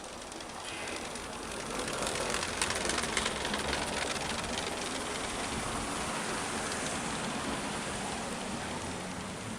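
A vehicle going by on a slushy, snow-covered street: tyre hiss swells to its loudest, with some clatter, about two to three seconds in, then carries on steadily with a low engine hum.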